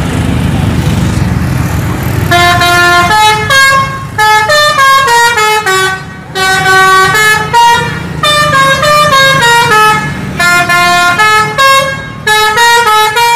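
Indonesian tour bus's musical multi-tone air horn ('telolet' horn) playing a tune of quick notes stepping up and down, in several runs with short breaks between. Engine and street noise come first, the horn starting about two seconds in.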